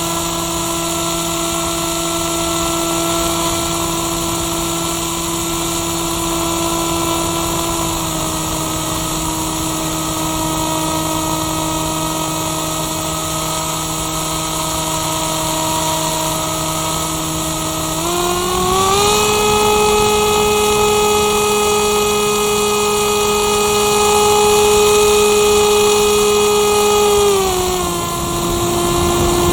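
Motor and propeller of a Firstar 2000 RC motor glider, heard from its onboard camera, running with a steady whine. The pitch dips slightly about eight seconds in, rises with more throttle about eighteen seconds in, and drops back about ten seconds later.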